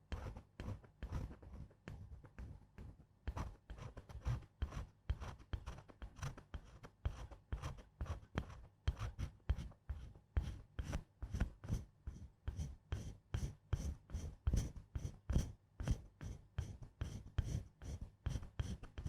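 Close-miked ASMR scratching strokes: quick short scrapes, about four a second, in an even rhythm.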